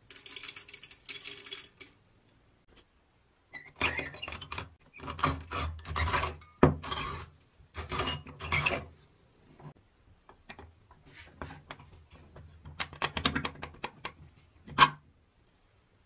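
Rusted, unrestored Peugeot hand-crank coffee grinder in use. Coffee beans rattle into its metal hopper. Then the crank is turned in uneven strokes, the burrs crunching and rasping as they grind the beans. A sharp clink comes near the end, as the glass catch drawer of ground coffee is taken out.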